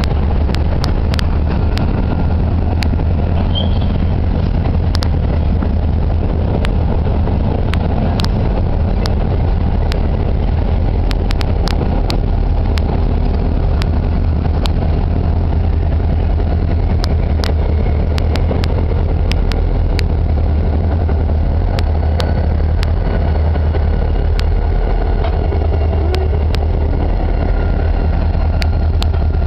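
A freight train rolls slowly past: covered hopper cars, then two diesel-electric locomotives with their engines running. A steady low rumble runs throughout, with sharp, irregular wheel clicks over the rails.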